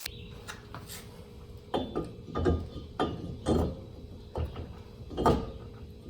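Metal hand tools clicking and clanking in about eight irregular strokes, with a faint steady hum underneath.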